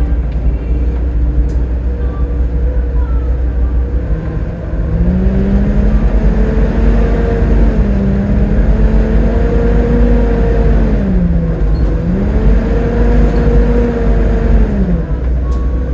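Volvo B7TL double-decker bus's six-cylinder diesel engine running under a heavy low rumble; about five seconds in a pitched drone joins as it pulls away, rises, dips twice and climbs again, then fades out near the end.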